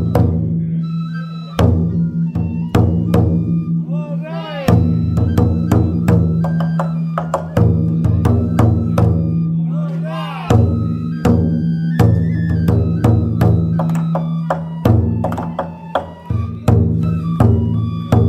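Taiko drum on a festival yagura float beaten with sticks in a fast, driving rhythm, with bright metallic ringing after many of the strikes. A voice calls out twice, about four seconds in and again about ten seconds in.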